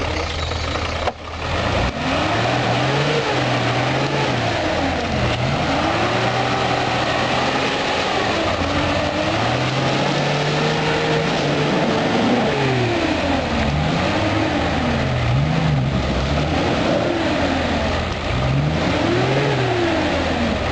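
An off-road 4x4's engine revving up and down again and again, each rise and fall lasting a second or two, as the vehicle works under load over an off-road obstacle.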